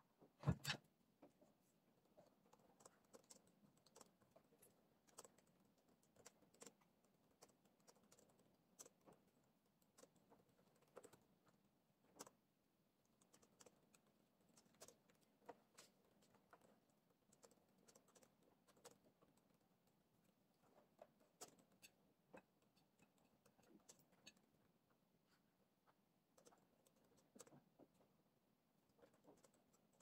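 Quiet typing on a laptop keyboard: irregular key clicks throughout, with one louder thump about half a second in.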